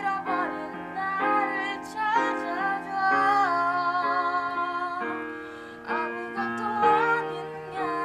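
Slow background music: a female voice singing a gentle melody over piano chords.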